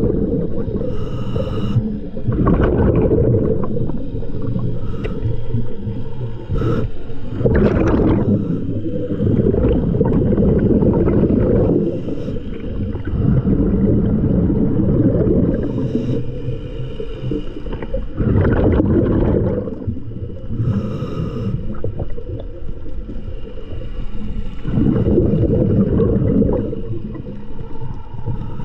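Scuba diver breathing through a regulator underwater: loud bubbly rumbles of exhaled air recurring every few seconds, with short hissy inhalations between them.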